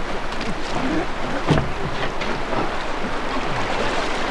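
Fast-flowing river water rushing steadily beside a canoe, with one sharp knock about one and a half seconds in.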